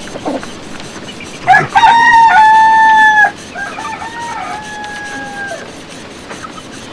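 A rooster crowing loudly once, about a second and a half in, followed at once by a second, fainter crow lasting about two seconds.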